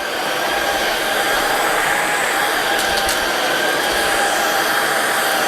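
Prettycare cordless stick vacuum running on its normal power setting while it is pushed over carpet, picking up dog hair: a steady motor whine over the rush of air.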